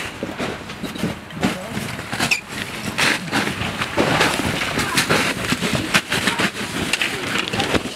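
Footsteps crunching and scraping on glacier ice in an irregular walking rhythm, with the voices of other hikers in the background.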